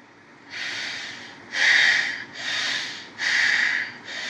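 Bhastrika pranayama breathing: forceful, even breaths in and out through the nose. They start about half a second in, at roughly one stroke a second, with softer and louder strokes taking turns, as the slow pace for beginners is shown.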